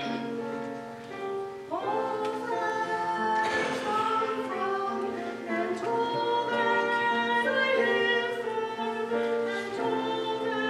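A woman singing with instrumental accompaniment, her voice coming in on held, wavering notes about two seconds in.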